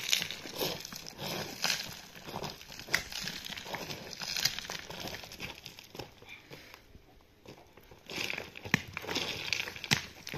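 Dry leaves and loose stones crunching and rustling irregularly under feet and hands, with sharp little crackles and clicks; it dies down for a moment about two-thirds of the way through, then picks up again.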